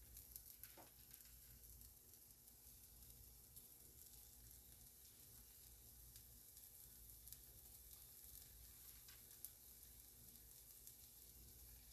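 Faint sizzling of hot olive oil as breaded parmesan-crusted chicken cutlets fry in a skillet, with a few light pops.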